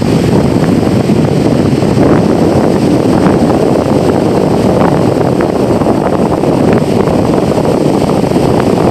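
Strong wind buffeting the microphone: a loud, steady rumble that masks everything else.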